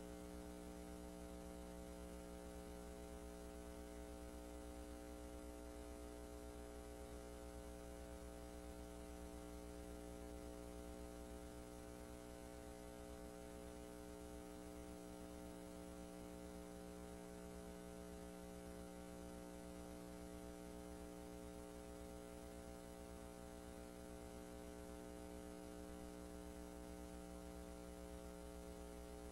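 Faint, steady electrical mains hum with several overtones over a light hiss, unchanging throughout: the empty soundtrack of a silent film transfer.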